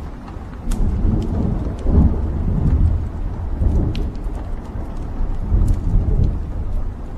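Wood fire burning in a fireplace: a low, loud rumble of flames that swells about a second in, with scattered sharp crackles and pops from the burning logs.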